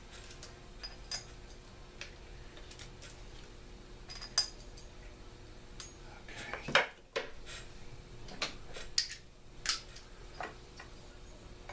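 Scattered sharp metal clicks and clinks of hand tools and small parts being handled while a chainsaw is taken apart.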